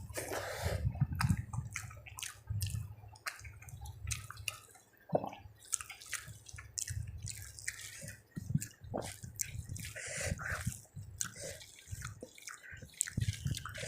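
Wet, irregular smacks and squelches of someone eating rice and curry close to the microphone: chewing with lip smacks and soft, sticky clicks.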